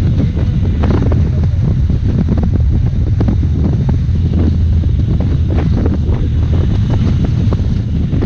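Heavy wind buffeting the microphone over a steady low rumble of a vehicle on the move.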